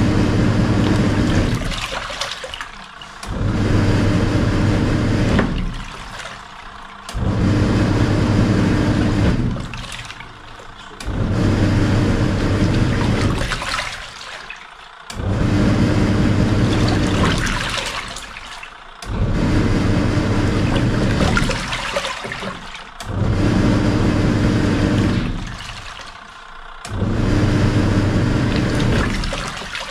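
Samsung SW-655P twin tub washing machine in its wash cycle: the motor hums and the pulsator churns the water for about three seconds, stops briefly, then starts again in the other direction, repeating about every four seconds.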